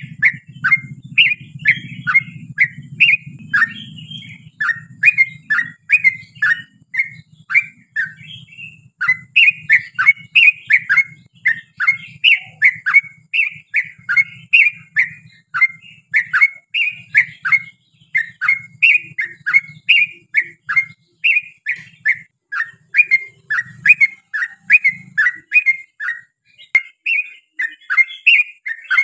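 Yellow-vented bulbul (trucukan) singing a long unbroken run of quick chirped notes, several a second, with no pause. A low hum sits under the song for the first half and fades out.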